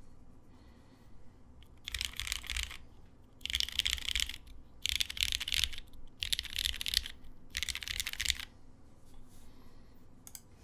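Custom mechanical keyboard with lubed Cherry MX Black linear switches in an aluminium plate, typed in five fast runs of about a second each, a dense patter of key clacks with short pauses between, then a few scattered keystrokes near the end.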